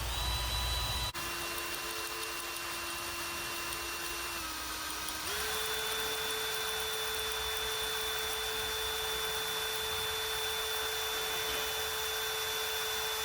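Power drill running under load, boring a 7/64 in pilot hole into a broken A/C compressor bracket bolt on an International DT466 engine to make room for an easy out. Its whine dips briefly about a second in, shifts pitch near four and five seconds, then holds steady.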